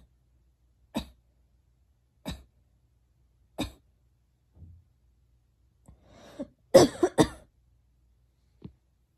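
A girl coughing: single short coughs about every second and a half, then a breath and a loud run of three quick coughs about seven seconds in, and one small cough near the end.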